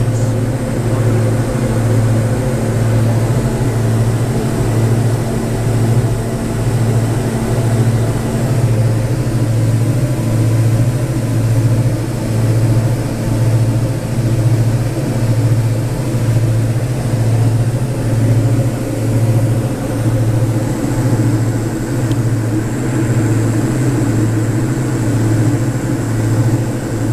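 Diamond DA42 Twin Star's twin engines and propellers droning steadily in cruise, heard from inside the cabin, with a low throb that swells and fades about once a second.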